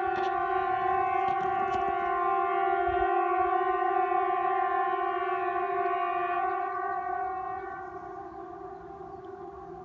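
A steady, single-pitched tone with a stack of overtones, like a siren or horn held on one note. It starts suddenly and fades away over a couple of seconds about seven seconds in.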